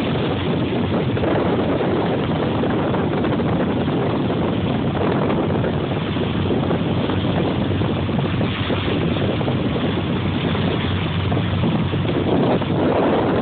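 A fishing boat's engine running steadily, with wind rumbling on the microphone.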